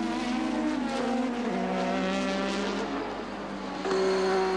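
McLaren-TAG Formula One car's 1.5-litre turbocharged V6 running at high revs on track. Its pitch steps down about a second and a half in and steps up again near the end.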